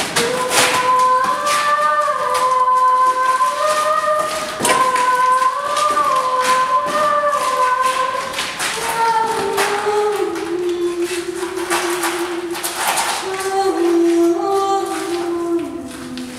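A solo voice singing long held notes that step between pitches and drop lower in the second half, with scattered taps and clicks.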